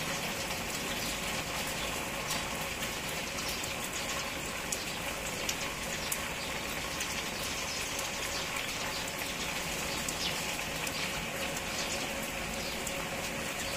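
Steady rainfall, an even hiss scattered with many small sharp drip and splash ticks.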